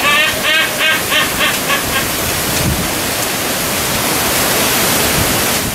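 Silvery-cheeked hornbills calling: a run of rising-and-falling notes, about four a second, growing fainter and stopping about two seconds in. A steady rushing noise runs underneath.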